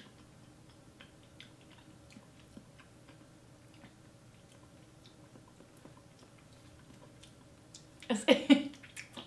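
Faint, soft mouth sounds of a woman tasting ketchup from her fingertip: small lip smacks and tongue clicks. About eight seconds in she breaks into a short, loud laugh.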